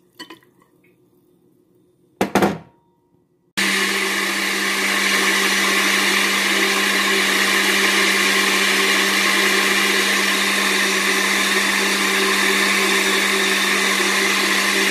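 Countertop glass-jar blender switching on suddenly about three and a half seconds in and running steadily, blending soaked oats with water: a steady motor hum under a broad whirring noise. A short knock comes a little before it starts.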